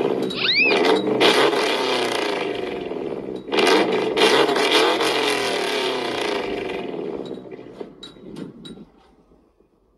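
Car engine revved hard through two vertical straight-pipe exhaust stacks, in three long loud revs, the last dying away about two-thirds of the way in. A few sharp crackles follow as it falls off, then it goes quiet.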